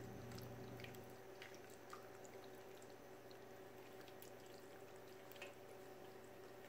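Faint soft plops and light clicks as sauce-coated chicken, sausage and vegetables slide and are scraped with a fork out of a pan onto pasta in a foil tray, over a low hum that fades about a second in.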